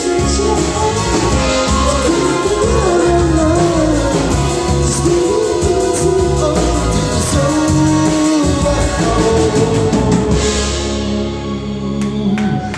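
Live rock band playing: electric bass, electric guitars and drum kit, with a man singing. Near the end the singing stops and the band holds a chord.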